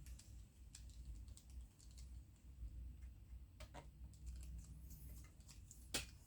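Faint, scattered clicks and taps of small parts and tools being handled while an RC car chassis is worked on, with one sharper click near the end.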